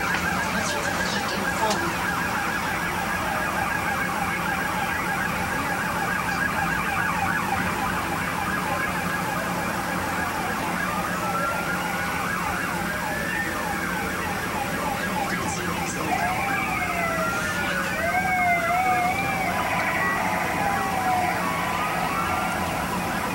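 Several emergency-vehicle sirens sounding at once, overlapping: fast yelping warbles through the first half, then slow rising and falling wails from about halfway through, over a steady low hum.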